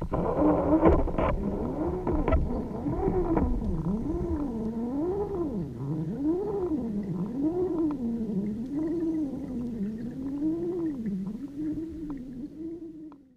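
A droning tone heard underwater, its pitch swinging smoothly up and down about once a second. There are a few clicks and knocks in the first second.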